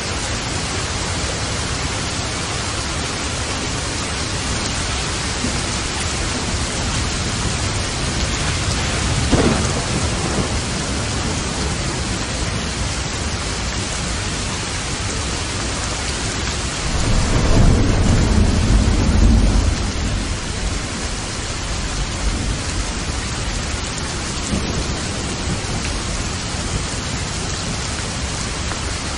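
Steady heavy rain with thunder: a short crack of thunder about a third of the way in and a longer, low rolling rumble a little past halfway.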